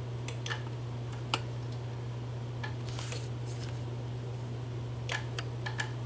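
Scattered light clicks from handling a power wheelchair's joystick and an RC transmitter, over a steady low hum.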